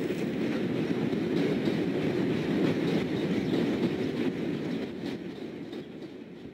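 Elevated train passing on its track: a steady rail noise that fades away near the end.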